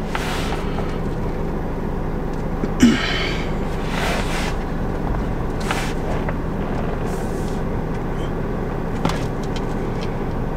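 Steady low hum of the car's running engine and climate-control fan heard in the cabin, with a few brief rustles about 3, 4, 6 and 9 seconds in.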